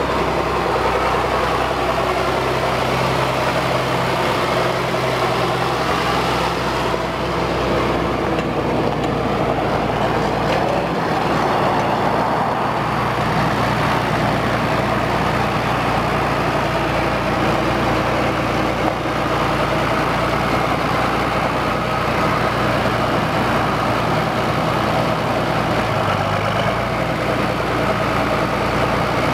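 John Deere 4240 tractor's turbocharged six-cylinder diesel engine running at a steady, even speed as the tractor drives slowly.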